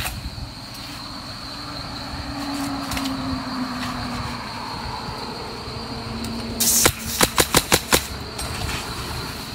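Pneumatic roofing nailer firing a quick run of about six nails into an asphalt shingle, one sharp shot after another, about seven seconds in: the six-nail high-wind nailing pattern. Crickets drone steadily underneath.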